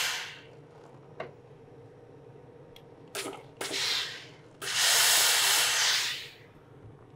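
Hose-fed steam iron puffing steam as it presses canvas: one hiss fades out at the start, short hisses come a little after three seconds and around four seconds, and a longer steady hiss of about a second and a half follows near five seconds. A light click sounds about a second in.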